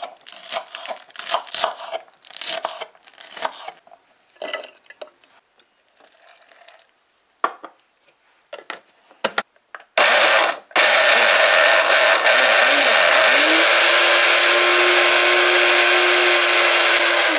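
A knife chopping scallion on a wooden cutting board, quick strokes for the first few seconds. Then, about ten seconds in, an electric countertop blender gives a short pulse and runs loud and steady, puréeing garlic, hot pepper and scallion, its motor pitch wobbling before it holds steady.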